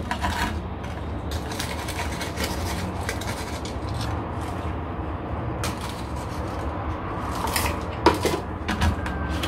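A plastic scoop pouring and scraping cactus substrate into a terracotta pot around a repotted succulent, in a run of short rustles and scrapes over a steady low hum. A sharper knock comes about eight seconds in as the scoop goes back to the plastic bin of substrate.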